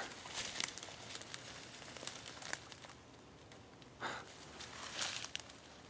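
Slow, scattered footsteps crunching and rustling through dry leaves and brush, a few steps about a second apart.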